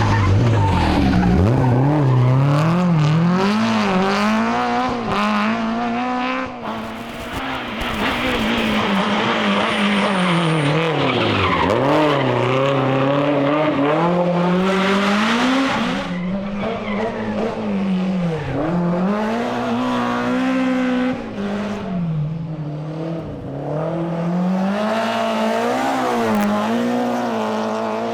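Group A BMW M3 E30's four-cylinder rally engine driven flat out, its pitch climbing and dropping again and again as it is worked up and down through the gears, with tyre noise over it.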